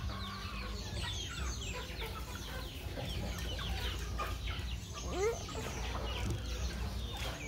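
A flock of chickens clucking and calling as they crowd in to be fed, with many short high calls throughout and one louder call a little past halfway.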